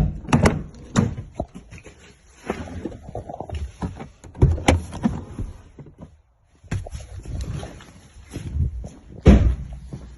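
Range Rover Evoque rear door being handled: repeated clunks and rattles from the door handle and door, with several loud knocks spread through.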